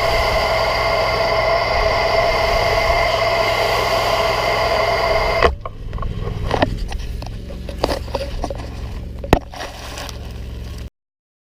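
Pressure-washing equipment running with a steady, high-pitched whine, which cuts off abruptly about halfway through. A low hum with scattered clicks and knocks follows, one knock sharper near the end, before the sound cuts out.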